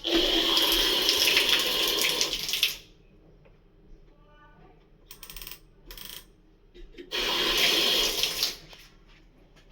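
Shower head spraying water in two spells, about three seconds and then about a second and a half. The water is being run to test a threaded joint just resealed with PTFE tape for leaks.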